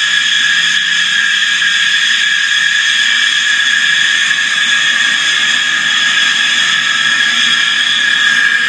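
Simulated jet-turbine sound played by an RC jet's sound board through its speaker: a loud, steady high whine over hiss, with no deep bass. A faint rising tone creeps in near the end.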